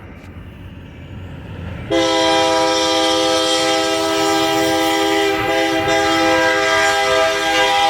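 Union Pacific 3990 freight locomotive's air horn sounding a long, loud chord of several notes. It cuts in suddenly about two seconds in, over the low rumble of the slowly approaching train, and holds to the end.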